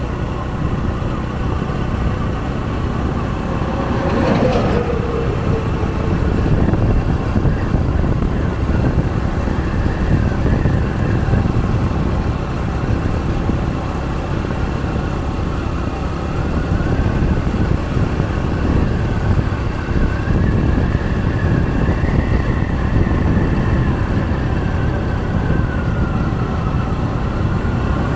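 Steady wind and road noise from a vehicle travelling along the road, with an engine whine rising and falling slowly in pitch. About four seconds in, a passing vehicle goes by, its pitch falling.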